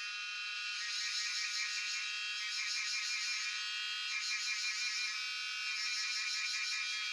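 Chorus of cicadas buzzing: a dense, steady, high-pitched drone with a fast pulsing texture, growing a little louder in the first second.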